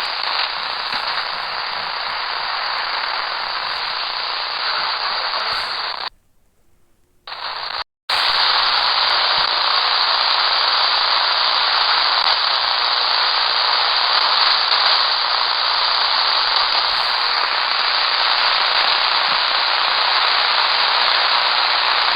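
Shortwave radio static: steady hiss and crackle from an AM receiver tuned to 6000 kHz, with no programme audio. It nearly cuts out for about a second around six seconds in and again briefly just before eight seconds, then returns slightly louder and steady.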